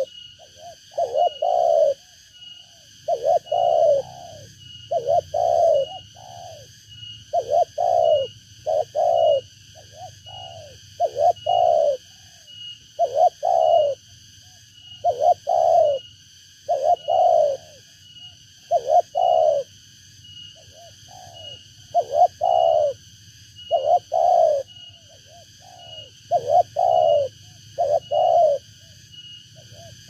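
Spotted dove (tekukur) cooing over and over, the call of a decoy dove used to lure wild doves: short low coo phrases of two or three notes every second or two. A steady, high, pulsing tone runs underneath.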